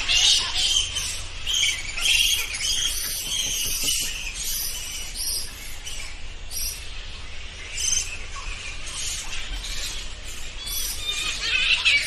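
Bats squeaking: a stream of quick, high-pitched chirps and twitters that comes and goes in bursts.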